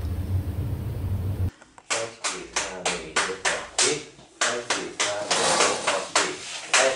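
A class clapping in a quick, even rhythm, about four or five claps a second, with short vocal sounds on the beats. Before that, a low steady hum that cuts off suddenly after about a second and a half.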